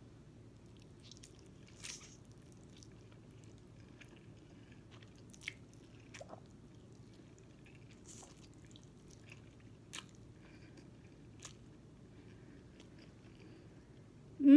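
Quiet eating of ramen noodles: faint chewing and slurping, with a few small scattered clicks. A short, loud vocal sound comes at the very end.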